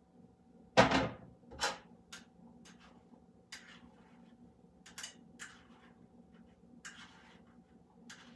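Kitchenware handled at a counter around a glass jar: a sharp knock about a second in, a second knock just after, then lighter clicks and taps.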